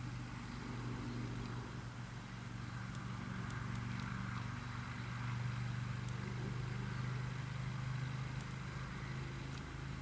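Steady low hum of a motor vehicle engine running, growing a little louder through the middle and easing off near the end.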